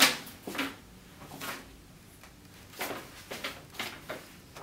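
Paper handling: a sealed envelope being passed over and turned in the hand, with a folded newspaper crinkling, in a series of short crackles and rustles. The sharpest crackle is at the very start, the rest fainter.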